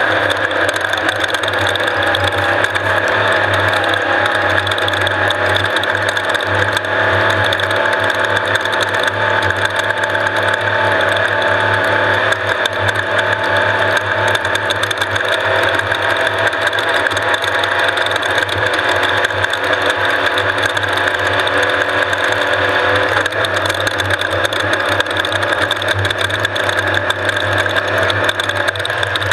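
Off-road race vehicle running: a loud, steady mechanical rattle and clatter over a low, even engine drone.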